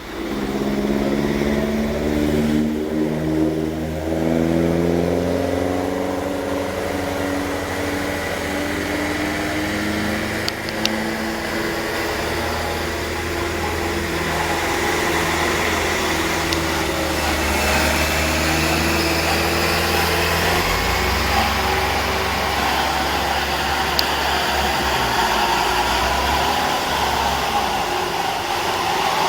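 Heavy truck's diesel engine labouring up a steep climb, its pitch stepping up and down over the first dozen seconds, then a steady rumble under load.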